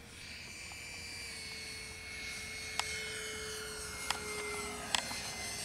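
Radio-controlled F-22 model jet flying past, a steady whine that grows louder and slowly drops in pitch as it comes by. A few sharp clicks in the second half.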